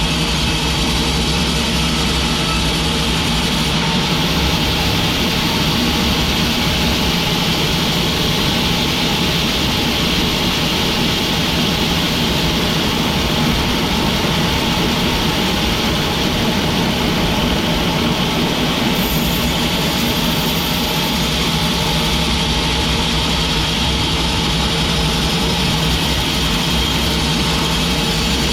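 Sawmill machinery running steadily: an even mechanical drone with hiss that keeps on without a break.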